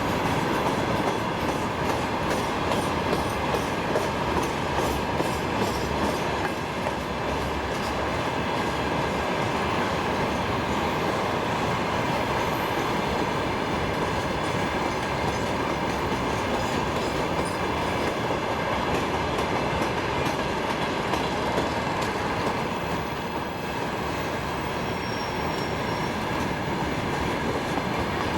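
Freight train rolling past steadily, its wagon wheels clicking over the rail joints.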